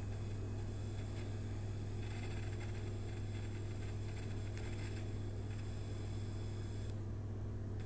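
A steady low hum with fainter higher tones above it, unchanging throughout.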